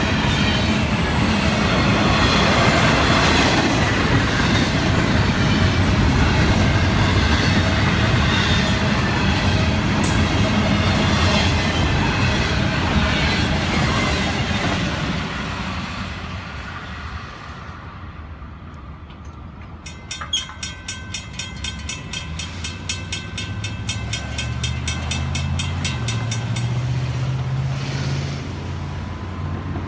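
Double-stack intermodal freight cars of a Florida East Coast train rolling over a grade crossing, wheels clattering and squealing; the noise fades out after about halfway as the last car passes. A crossing bell then rings with rapid, even strokes for several seconds, and near the end a road vehicle's engine pulls away.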